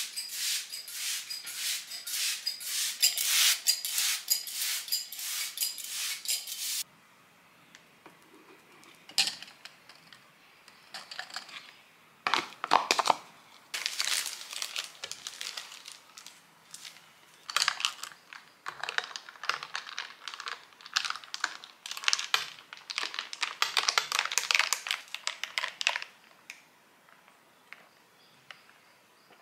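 Close-up household handling sounds with no voice or music. A hand mister sprays plants in a rapid run of hissing puffs that stops abruptly about seven seconds in. Later, paper crinkles and tears as a wrapper is opened, with a few knocks of tableware.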